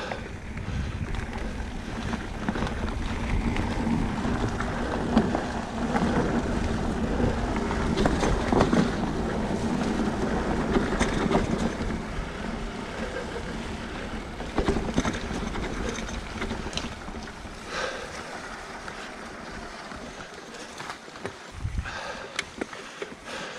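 Ride noise from an electric mountain bike on a trail: wind buffeting the microphone over tyre rumble, with occasional knocks and rattles. Louder in the first half, easing off after about twelve seconds.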